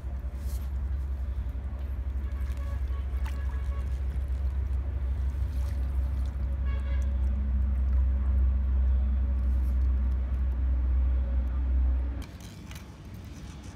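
A loud, steady low rumble that slowly builds and cuts off suddenly about twelve seconds in, with a few faint high tones above it.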